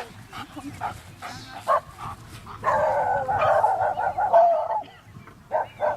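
Dogs barking: a few single barks, then a loud stretch of rapid, continuous barking from about three seconds in, and a quick run of barks near the end.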